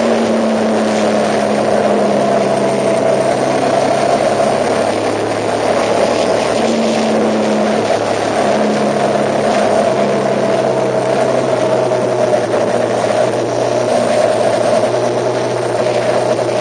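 A vehicle on the move: a steady engine drone and running noise, with a whine that drifts slowly up and down in pitch.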